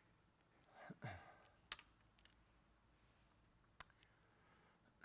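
Near silence in a small room, broken about a second in by a man's short sigh falling in pitch, and by a few sharp clicks, one just after the sigh and one near four seconds in.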